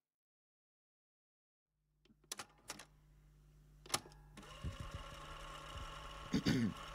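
Dead silence for about two seconds, then a steady electrical hum comes in with a few sharp clicks, the noise floor of a recording just starting.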